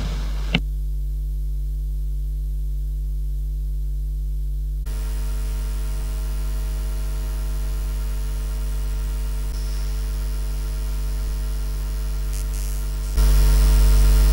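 Steady electrical mains hum with a buzzy edge. A faint hiss of room noise joins it about five seconds in, and the hum steps up louder near the end.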